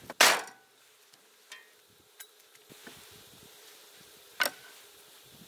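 Cleaver chopping through yellowtail head and bones on a wooden cutting board: one hard chop just after the start, then three lighter knocks spread through the rest. A faint steady hum runs underneath.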